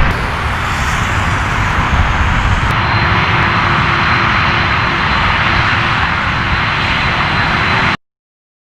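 Jet airliner's engines, loud and steady with a faint high whine, close by; the sound cuts off suddenly about eight seconds in.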